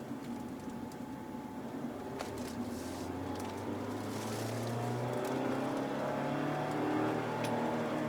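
Mazda Roadster's engine running on the move, its pitch climbing gradually as the car gathers speed, with a few sharp clicks or ticks on top.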